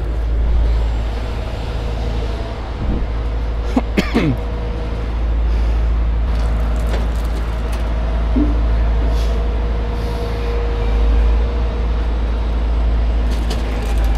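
A heavy rotator tow truck's diesel engine runs with a deep, steady rumble and a faint steady whine under it. A brief sharp squeak comes about four seconds in.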